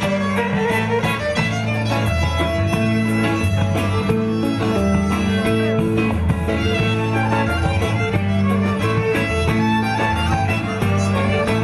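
Greek island folk dance music, a violin carrying the melody over a plucked lute and a bass line that repeats in a steady dance rhythm.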